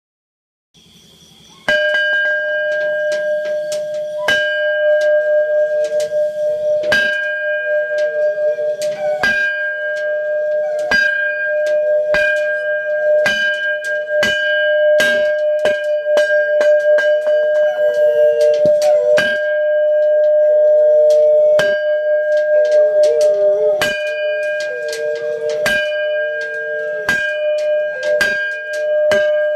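Temple bell struck over and over, each stroke ringing on into the next, as the signal for the monks to set out on their alms round. The strokes come at uneven intervals and bunch closer together near the end.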